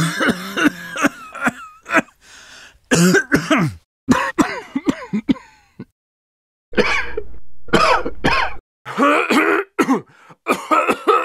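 An elderly man, about 72, coughing over and over in fits, barely catching his breath between them. After a short silence about six seconds in, a man of about 40 starts coughing in fits of his own.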